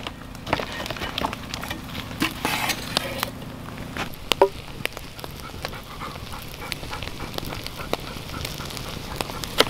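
Wood campfire crackling, with scattered sharp snaps and pops.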